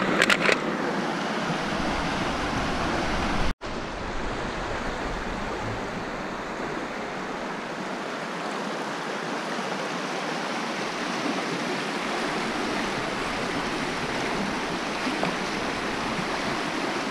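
Shallow river rushing over stones in a strong current, a steady rush of water. A few sharp clicks sound at the very start, and the sound cuts out for an instant a few seconds in.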